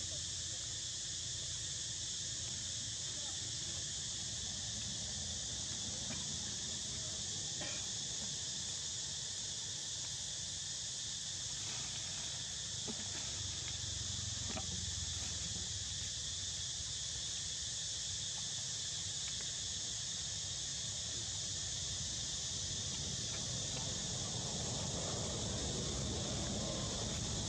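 Steady, high-pitched insect chorus that runs unbroken, with a low hum beneath it.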